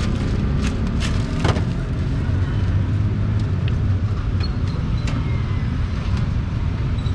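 Street traffic: a steady low engine rumble, stronger around the middle, with scattered short clicks and knocks.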